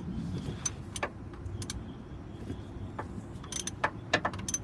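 Irregular metallic clicks and taps of a socket ratchet being fitted and worked on a car's oil drain bolt, with a cluster of sharper clicks near the end, over a steady low rumble.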